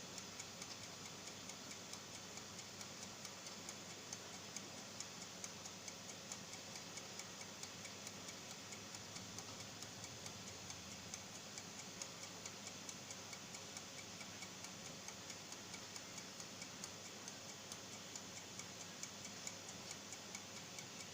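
Faint, steady, evenly spaced ticking over a light background hiss.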